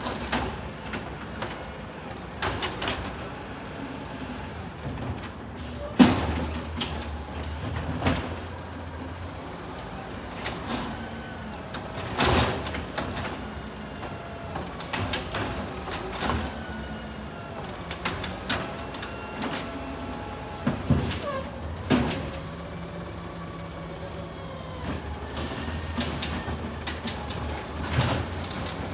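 City of Los Angeles automated side-loader garbage truck collecting curbside bins: its diesel engine runs steadily while the hydraulic arm whines up and down, and emptied bins bang against the truck and the curb every few seconds, the loudest bang about six seconds in.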